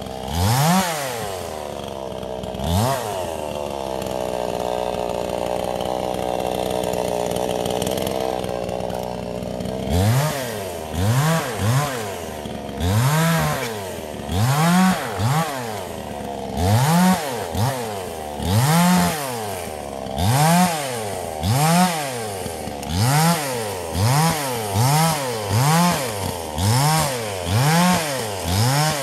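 Zenoah-clone two-stroke chainsaw running. It is held at steady high revs for several seconds, then revved in short repeated blips that drop back between each one, about one a second and coming quicker near the end.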